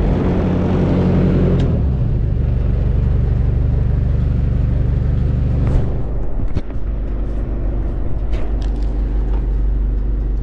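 Enclosed lifeboat's inboard diesel engine running at low revs, a steady low rumble that eases down about two seconds in. A few short knocks come around the middle and near the end.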